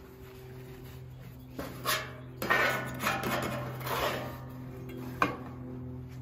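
Paper towel rubbing and scraping across a flat top griddle's cooking surface, a run of short wiping strokes in the middle, with a sharp click a little after 5 seconds. A steady low hum runs underneath.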